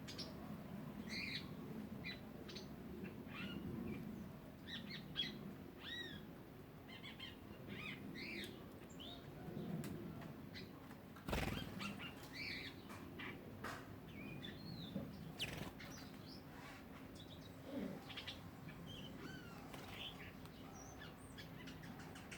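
Several small birds chirping and calling in short, varied notes, with a single sharp knock about eleven seconds in.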